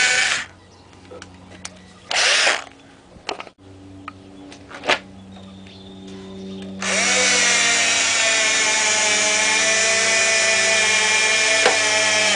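Electric drill running at a screw hole in a wooden door-frame rail: a burst that stops about half a second in, a short burst around two seconds in, then a steady run of about six seconds from near the middle to the end. It is countersinking and fixing screws into the reglued bottom rail.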